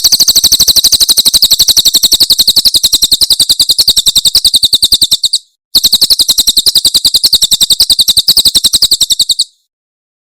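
Cililin bird singing its 'tembakan' song: a loud, fast, rapid-fire train of high, sharp notes. It comes in two long runs with a brief break in the middle, and stops shortly before the end.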